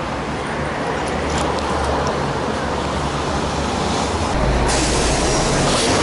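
Metro bus running: a steady rumble of engine and road noise, the low rumble getting louder about four seconds in.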